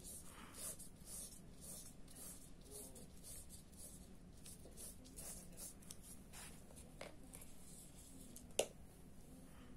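Paintbrush stroking paint onto paper: faint, repeated scratchy swishes, one or two a second. A single sharp click near the end is the loudest sound.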